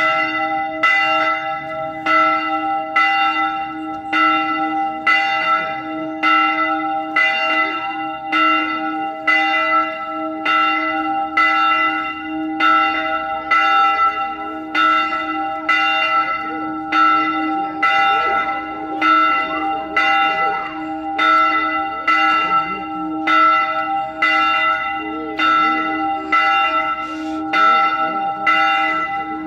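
A bell struck over and over in a steady rhythm, about once a second. Its tone keeps ringing on between strokes, so the strikes overlap into a continuous peal.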